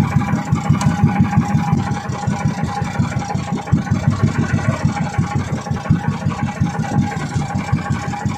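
Small boat engine running steadily, a fast even beat of firing pulses with a thin steady whine over it.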